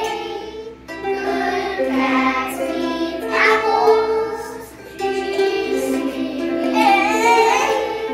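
A group of young children strumming ukuleles and singing together, a short song with phrases broken by brief pauses.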